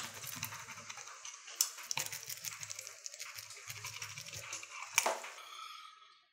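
A pizza cutter's wheel rolling through the crisp crust of a pan-fried potato pancake, a crackling crunch broken by a few sharp clicks, the loudest about five seconds in. The crunch fades out near the end.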